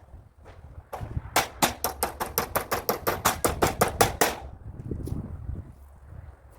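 Hammer striking nails into wood: a quick, even run of sharp blows, about four a second, for roughly three seconds, with a few single knocks before it.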